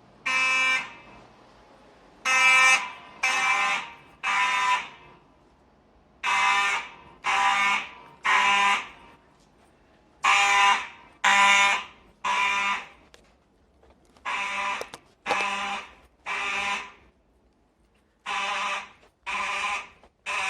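Simplex 2901-9839 mechanical fire alarm horns sounding temporal code: harsh buzzing blasts in groups of three, about a second apart, with a pause of about a second and a half between groups.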